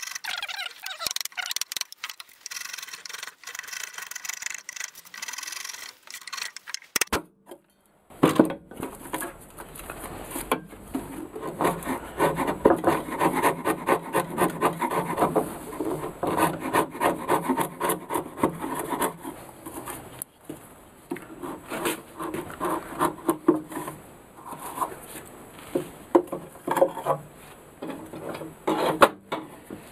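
Wood chisel paring and scraping out softwood waste between saw kerfs, a run of quick short scraping strokes with small clicks. The scraping stops briefly about seven seconds in, then carries on lower and fuller.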